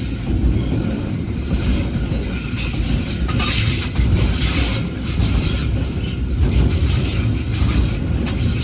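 Container freight train passing close by, its wagons rumbling and clattering along the rails, with hissing wheel-on-rail noise that comes and goes.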